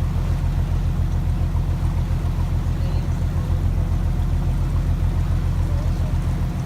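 Boat engine running steadily at constant speed, a low, even drone with a fast pulse.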